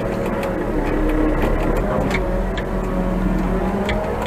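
Diesel engine of an old Manitou telehandler running steadily, heard from the cab, its pitch drifting slightly, with occasional light clicks and rattles.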